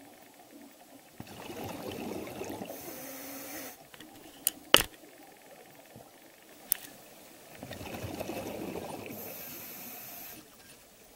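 Scuba regulator exhaust: a diver's exhaled bubbles burbling out twice, a few seconds apart, each breath ending in a brief hiss. Between the two breaths come a few sharp clicks, the loudest pair about four and a half seconds in.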